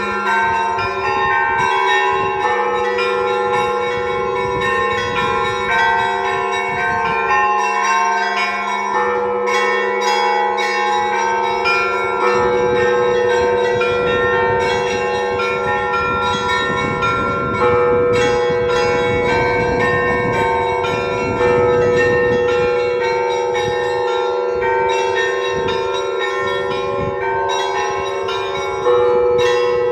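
Orthodox monastery church bells ringing together: small bells struck in quick, overlapping patterns over the lasting hum of the larger bells, with a few heavier strokes standing out.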